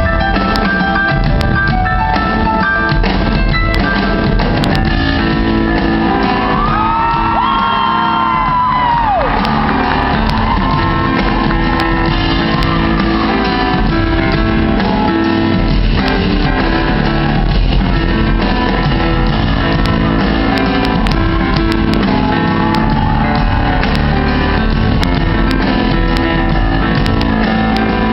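Live rock band playing a song in a large hall, with drums, bass and keyboards, recorded from the audience and muffled. A voice cries out in one long pitch that rises and falls, about seven seconds in.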